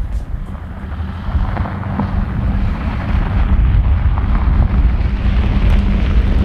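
Steady low vehicle rumble mixed with wind noise, growing gradually louder.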